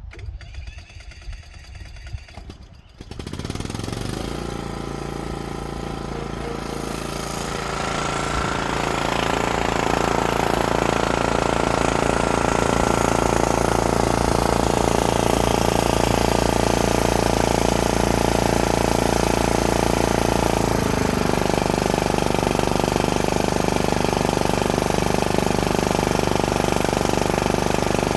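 Huskee riding mower's Kohler engine starting about three seconds in after a few quiet clicks. Its speed climbs over the next several seconds to a steady run, and the note shifts once about two-thirds of the way through.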